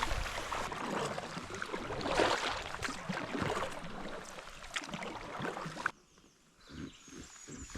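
Kayak paddle strokes splashing through the water, swelling and fading about once a second. About six seconds in the sound cuts off suddenly, leaving a few soft low knocks and faint high chirps.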